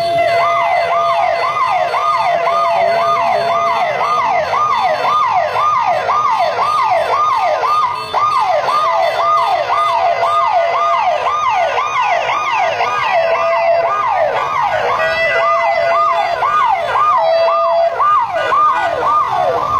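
Electronic siren of a motorcycle escort sounding a fast yelp, its pitch sweeping up and down about twice a second. A steady single tone sounds alongside it at times.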